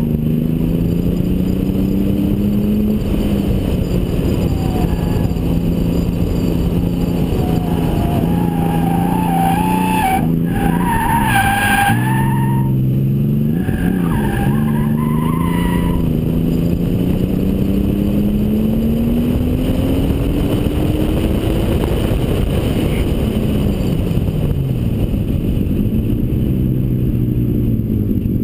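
Toyota Supra twin turbo's 2JZ-GTE straight-six revving up and easing off through a lap, its pitch climbing on a long pull and falling away near the end. Tyres squeal through the corners from about eight to sixteen seconds in.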